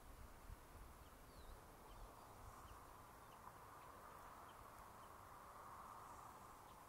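Near silence: faint outdoor ambience with a low, fluttering rumble and a few faint, short, high chirps.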